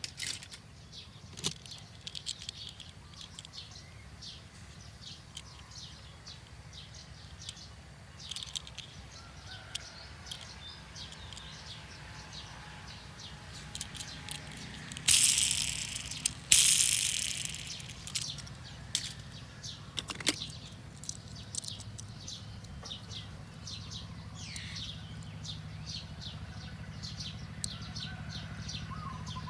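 Nature ambience of birds chirping and calling in many short, quick notes over a low steady rumble, with two loud rushes of noise, each about a second and a half long, back to back about halfway through.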